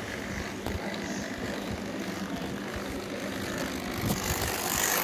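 A steady mechanical whirring hum with a faint low tone running through it. About four seconds in comes a brief rustle of the phone being moved.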